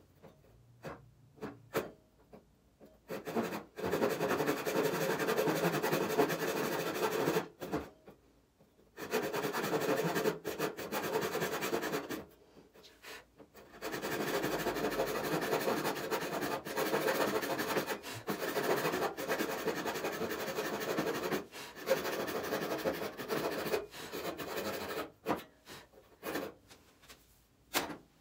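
Handsaw cutting through an MDF board in quick back-and-forth strokes, in four long stretches with short pauses between them, with a few light taps and clicks before the first and after the last.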